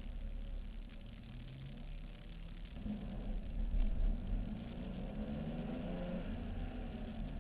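Porsche 996's flat-six engine under track driving, heard from a roof-mounted camera. The engine note shifts with the throttle and climbs about three seconds in, over a steady low wind rumble.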